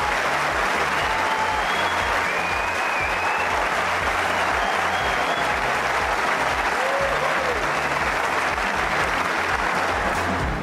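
A tennis crowd applauding: steady, dense clapping that holds at an even level throughout.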